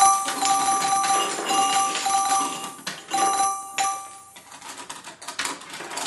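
Many small balls clattering and clicking down a plastic toy ball-run tower, a rapid busy rattle that thins out and quietens about four seconds in. Short, repeated bell-like tones ring over the clatter.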